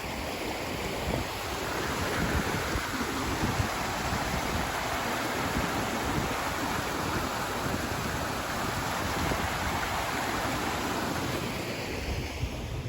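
Rushing water, a steady hiss of falling or flowing water, with wind buffeting the microphone in uneven low rumbles.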